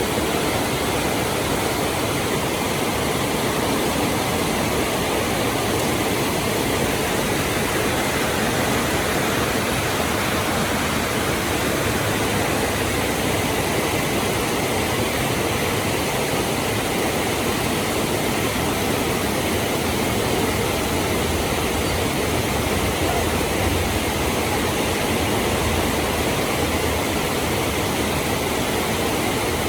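Very heavy rain falling steadily, an even dense hiss of downpour.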